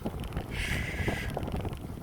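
Wind noise on the microphone of a moving bicycle, with small knocks and rattles from the ride. A brief hiss comes in about half a second in and lasts under a second.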